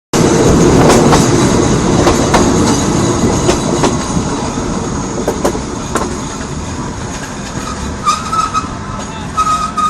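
Passenger train rolling on the rails, wheels rumbling with scattered sharp clicks over the rail joints, growing gradually quieter as it slows. A thin wheel squeal starts about eight seconds in and comes again near the end.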